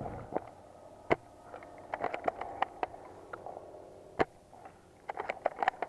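Airsoft guns firing: single sharp cracks about a second in and about four seconds in, with quick irregular strings of cracks around two seconds in and near the end.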